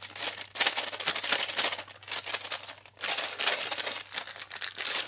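Clear plastic bags of small metal screws and nuts crinkling as they are handled, in two busy stretches with a short pause about three seconds in.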